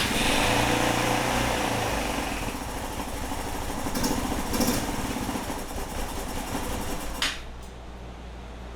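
GY6 150cc scooter engine, primed with starter fluid after two years of sitting, cranking and catching and running loudly for about seven seconds. The engine sound then drops sharply, and a quieter, lower sound carries on.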